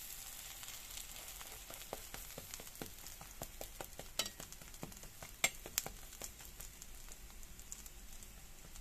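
A thin pancake frying on a flat nonstick griddle pan: a steady sizzle with scattered small crackles. A metal slotted spatula gives a few sharp clicks against the pan a little after four seconds in and again near six seconds.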